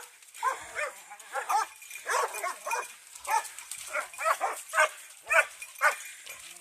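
Boar-hunting dogs barking in short, high yelps, about a dozen in irregular succession at roughly two a second.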